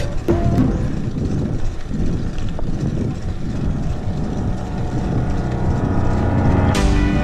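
Steady low rumble of a mountain bike riding along a concrete lane: wind on the microphone and tyre noise. Music comes back in with a sudden struck chord near the end.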